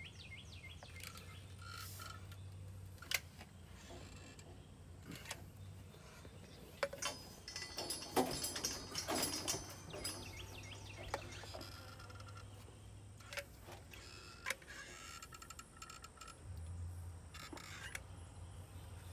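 Caulk gun being worked: scattered sharp clicks from its trigger and plunger, and handling noise. There is a busier run of small noises about eight to ten seconds in, over a low steady hum.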